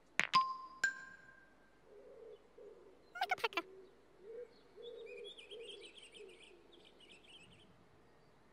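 Two bright ringing dings a little over half a second apart as a stone is set onto a flat stone, a stylised sound effect for stacking stones. A quick rattle of clicks follows near the middle, then birds chirping for a few seconds.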